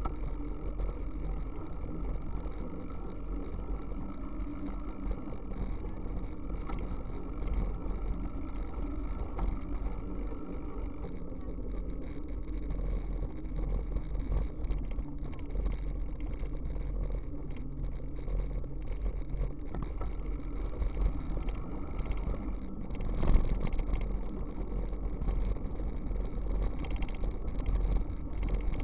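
Steady wind and road rumble as a bicycle rolls along an asphalt road, picked up by a camera mounted on the bike. There is one brief louder knock about three-quarters of the way through.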